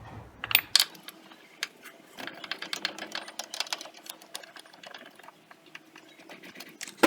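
Hand ratchet wrench clicking rapidly as strut top-mount bolts on a car's front suspension are spun out by hand, with a few louder metal knocks.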